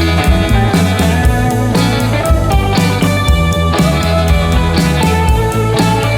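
Background rock music with a steady beat and guitar.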